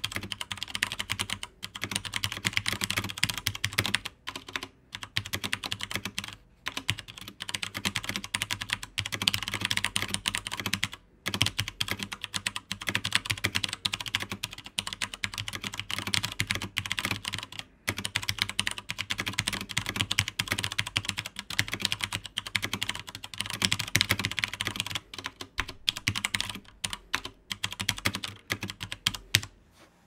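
Steady typing on a WASD V2 tenkeyless mechanical keyboard with Cherry MX Brown switches: a dense, fast stream of key presses and keycap clatter, broken by a few brief pauses.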